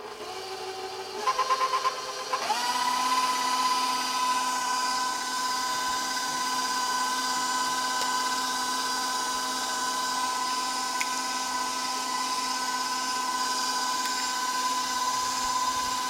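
Electric stand mixer running as it creams butter and sugar. It starts at a low speed with a brief rhythmic pulsing, then about two and a half seconds in rises to a steady, high-pitched motor whine.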